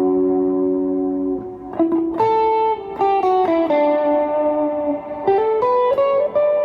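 Electric guitar (a Fender Duo-Sonic HS) played through an Electro-Harmonix Soul Food overdrive pedal into an amp: a held chord rings out for about a second and a half, then a melody of single sustained notes.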